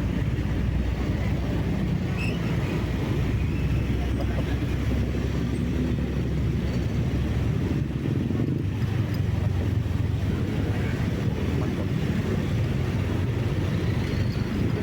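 A moving vehicle's steady engine and road rumble while driving along, with a slight shift in the low rumble about halfway through.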